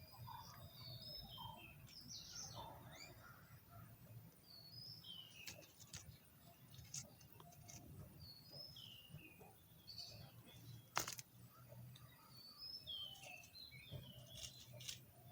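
Faint birdsong: small birds chirping, short high calls that drop in pitch, repeated every second or two over a low steady hum. A single sharp click about eleven seconds in.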